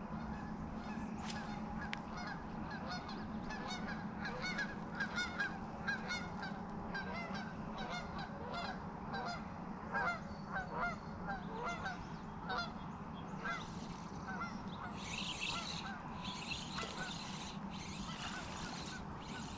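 Geese honking, many short calls at an irregular pace throughout, over a steady low background hum.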